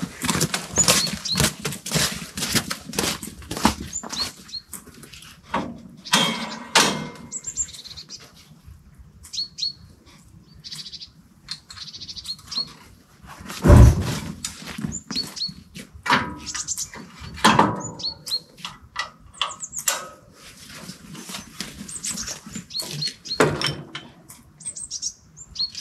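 A run of knocks and clicks, with one heavy thunk about fourteen seconds in, while short high chirps repeat throughout.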